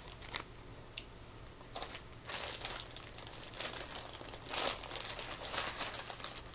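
Clear plastic bags crinkling as they are handled and rummaged through, starting with a couple of sharp clicks and becoming steady crinkling from about two seconds in.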